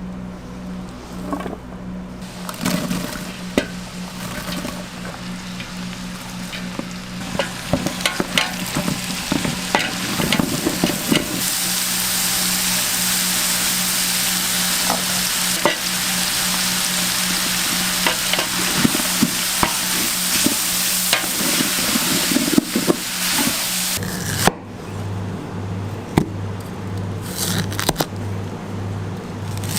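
Food for omelette rice frying on a hot pan, sizzling, with clicks and scrapes of a cooking utensil. The sizzling grows loud about a third of the way in and cuts off sharply near the end. A steady low hum runs under it.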